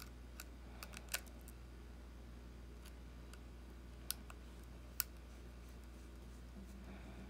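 Scattered small, sharp clicks of a precision screwdriver tip working the tiny screws of a metal bracket on an iPhone 6s screen assembly, the loudest about a second in and again about five seconds in, over a steady low hum.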